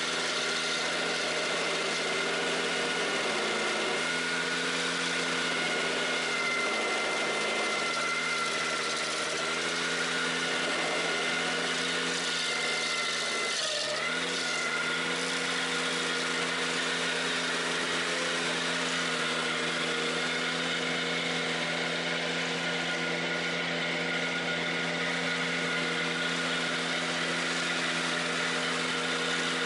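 Ventrac 4520Z's diesel engine running steadily at working speed, driving the KC180 stump grinder wheel as it cuts into a stump. The engine note dips briefly about halfway through and then recovers.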